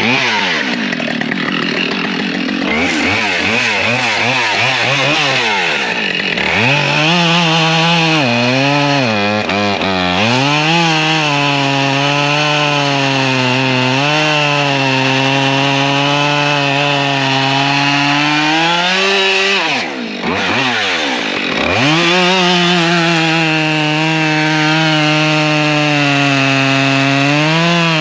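Husqvarna 572 XP two-stroke chainsaw running at high revs while cutting through a log. The engine pitch dips briefly several times as the chain loads up, and about twenty seconds in it drops sharply and climbs back to full speed.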